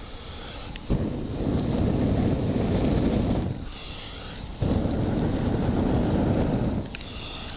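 Rushing, rumbling noise blasting the microphone in bursts of two to three seconds with short gaps between them, each burst starting suddenly. A faint warbling sound comes through in the gaps.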